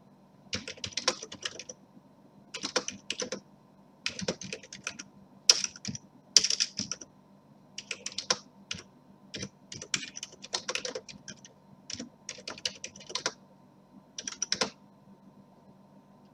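Typing on a computer keyboard: runs of quick keystrokes in short bursts with brief pauses between words, stopping near the end.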